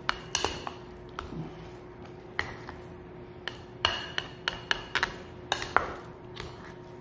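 A metal spoon and a plastic paddle stirring raw ground-pork and shrimp filling in a ceramic bowl, the spoon clinking against the bowl at irregular moments, most often about four to six seconds in.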